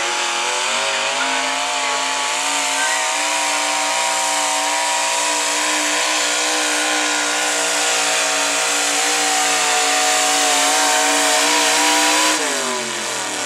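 V8 engine of a hot rod pulling tractor running flat out under load as it drags the weight-transfer sled, holding a steady high pitch. Near the end the revs fall away sharply as the throttle comes off at the end of the pull.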